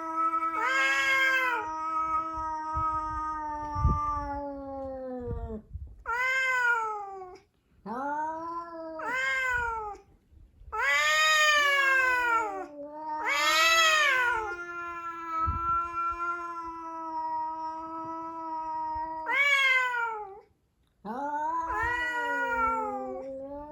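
Two cats caterwauling at each other, the territorial yowling of a cat standoff: long drawn-out wails that rise and fall like a siren, one cry held low and steady for several seconds while the other swoops up and down over it, with short breaks between calls.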